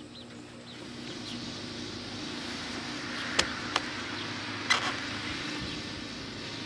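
Painted wooden boards shifted and butted together by hand: two sharp knocks about three and a half seconds in, then a scraping knock a second later. A steady low hum sits under them.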